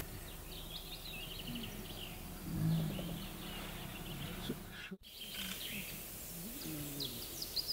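Small songbirds chirping and singing over steady outdoor background noise, with a short low sound about two and a half seconds in and a brief dropout about five seconds in.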